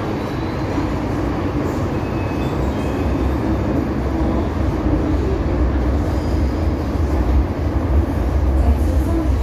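Steady low rumble and rail noise inside an MTR metro car as the train gets under way, growing a little louder throughout.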